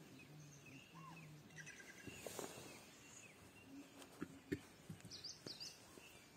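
Faint outdoor quiet with scattered short bird chirps and calls, plus a few soft knocks about four to five seconds in.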